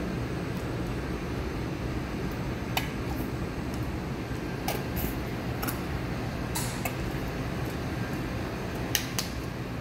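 Spatula stirring potato salad in a stainless steel mixing bowl: a handful of light clicks and scrapes of the spatula against the bowl, two close together near the end, over a steady fan hum.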